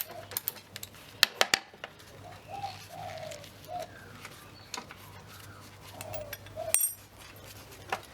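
A few sharp metal clicks and taps from spanner and socket work on the hex bolts of a reel mower's frame, loudest about a second in and again near the end. A dove coos in short notes in the background.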